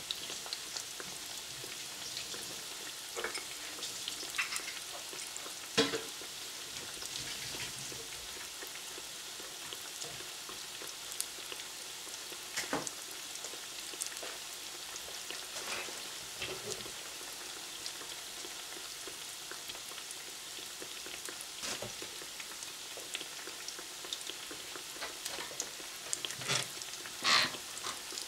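Breaded zucchini slices frying in hot oil in a stainless steel pan: a steady sizzle with scattered crackles and an occasional sharper pop.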